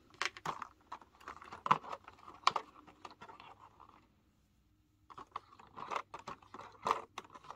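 Thin plastic blister tray crackling and clicking as fingers pry an alternate action-figure head out of its slot, in irregular small clicks and scrapes. There is a gap of about a second just past the middle.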